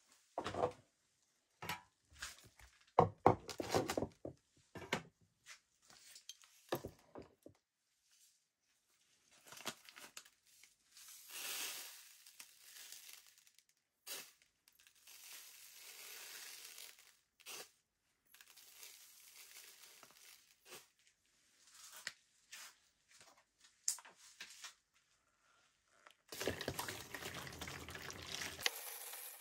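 Hands working on a small toy sewing machine: a run of clicks and knocks, loudest a few seconds in, then longer stretches of scraping or rustling, and a steady rushing noise near the end that cuts off suddenly.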